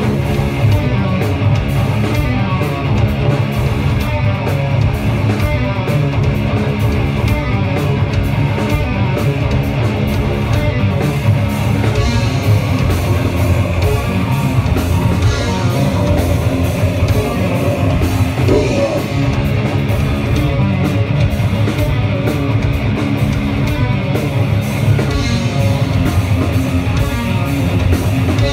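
Live rock band playing an aggressive, heavy song on electric guitar and drum kit, loud and dense with no break.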